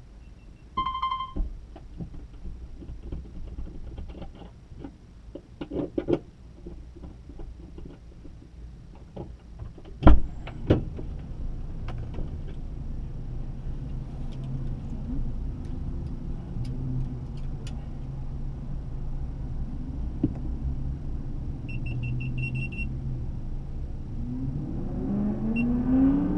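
Car interior sounds as a car is readied and driven off. A short beep comes about a second in, followed by clicks and rattles and a loud thump about ten seconds in. The engine then runs steadily, a quick run of high beeps sounds a little after twenty seconds, and the engine revs rising as the car pulls away near the end.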